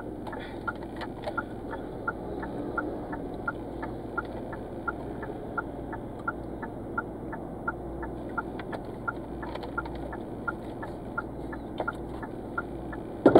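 Car turn-signal indicator ticking steadily, nearly three clicks a second, over the low steady hum of the car cabin.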